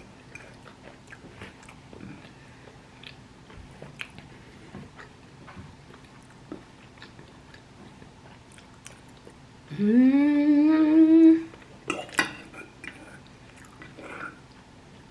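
Close-up mouth sounds of someone eating: soft chewing with small wet clicks and smacks. About ten seconds in comes a loud closed-mouth "mmm" hum that rises in pitch and holds for about a second and a half.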